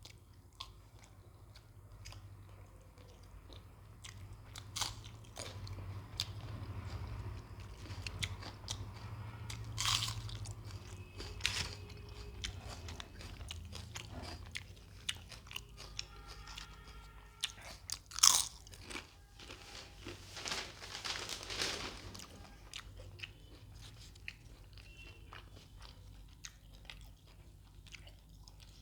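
A person eating close to the microphone: chewing with crunchy bites and sharp crackles through the whole stretch. The loudest bite comes about two-thirds of the way in.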